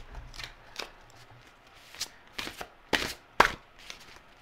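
Oracle cards being shuffled by hand: a string of irregular sharp card slaps and riffles, the loudest about three and a half seconds in.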